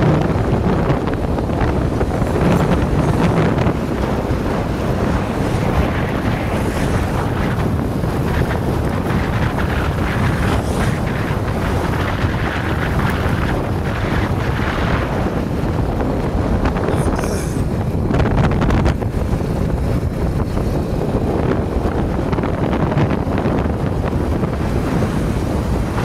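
Wind buffeting the microphone over the steady rumble of a vehicle moving along the road.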